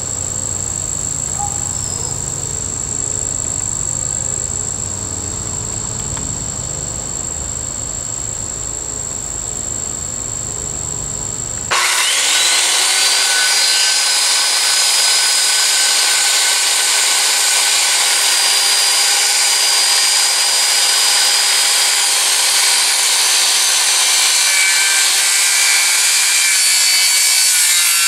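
Steady high insect trill for about the first twelve seconds. Then a corded circular saw starts suddenly, its whine rising as the motor spins up, and runs steadily while ripping a 2x4 lengthwise.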